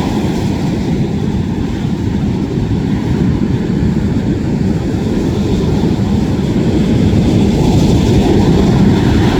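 Heavy winter surf breaking on the shore in high seas: a loud, continuous rumble that swells a little near the end.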